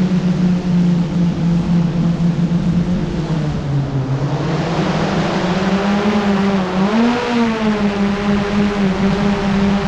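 Quadcopter drone's motors and propellers humming in flight. The pitch sags about three and a half seconds in, then climbs back and wavers around seven seconds in.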